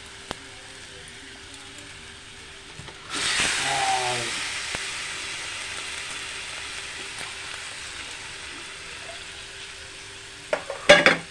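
Thick milk cream hitting a hot kadai with lemon leaves in it and starting to sizzle, suddenly and loudly about three seconds in, then settling into a steady, fainter sizzle as the cream begins to render into ghee. A few sharp knocks near the end.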